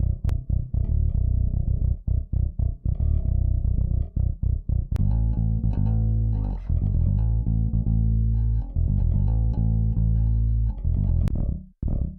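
Nu metal bass guitar loops played one after another: a choppy, stop-start riff for about the first five seconds, then long held low notes, then short choppy notes again near the end.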